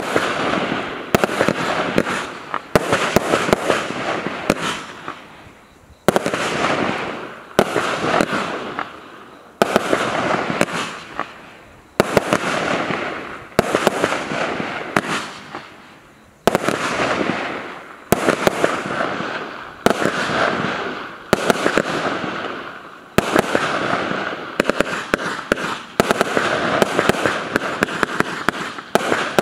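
Baron Burgh 100-shot firework battery (cake) firing in quick succession: a bang about every second or two, each followed by a crackling tail that fades before the next shot.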